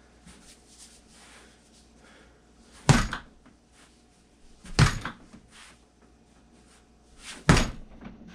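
A baseball bat striking a freestanding rubber torso punching dummy: three hard thunks, about three seconds in, near five seconds and about seven and a half seconds in.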